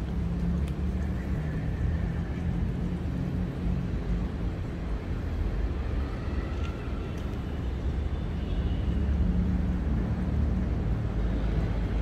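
Steady low rumble of urban outdoor ambience, with a faint hum running through it.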